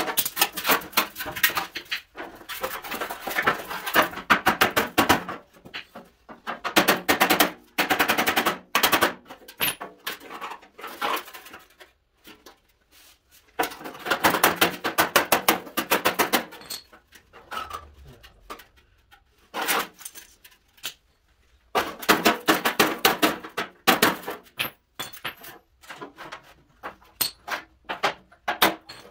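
Fast runs of hammer blows on a dented steel car fender, several seconds each, with short pauses and a few single strikes between. The dents are being roughed out.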